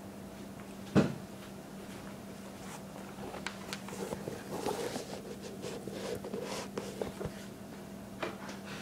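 Handling noise as a new skate shoe and the filming phone are moved about on a wooden table: one sharp knock about a second in, then a few seconds of light clicks and rustling, and two more clicks near the end. A steady low hum runs underneath.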